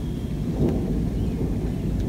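Low, rolling thunder rumbling continuously, swelling slightly a little over half a second in.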